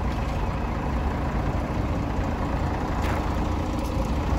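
Diesel engine of a Volvo city bus idling, a steady low rumble.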